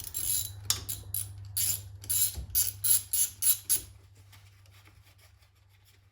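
Socket ratchet clicking in quick, uneven strokes as the cover bolts of a GM 8.5 ten-bolt differential are backed out, stopping about four seconds in. A low steady hum runs underneath.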